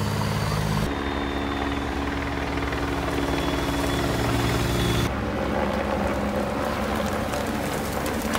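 Engines of race-convoy vehicles, team cars and motorbikes, running steadily as they pass on a wet road, in short clips that cut abruptly about a second in and again about five seconds in.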